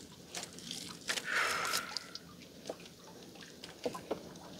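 Water dripping and splashing with scattered small knocks. About a second in comes one short, louder splash.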